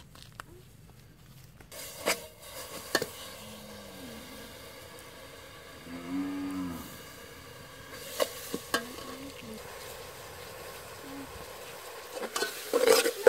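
A thick brown paste sizzling and bubbling in a hot aluminium pot, with metal ladle clinks against the pot and a cluster of louder knocks near the end. A cow moos briefly about six seconds in.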